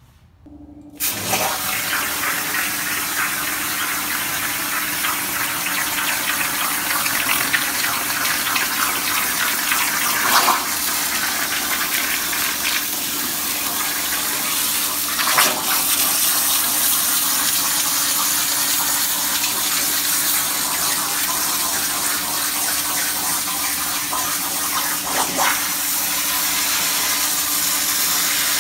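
Plasma cutter arc firing about a second in, then cutting 16-gauge sheet steel with a loud, steady hiss over a low hum. The torch runs an 85-amp tip at 600 inches a minute, and the hiss flares louder briefly three times.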